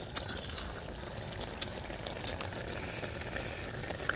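A person eating frog meat by hand: wet chewing, sucking and lip-smacking, heard as irregular small clicks over a steady hiss.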